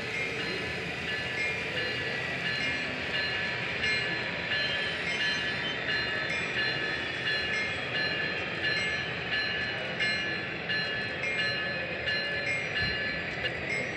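Model Union Pacific SD70ACE diesel locomotive's LokSound DCC decoder playing diesel locomotive sound through its small on-board speaker as the model runs. A high tone repeats about twice a second over a steady running noise.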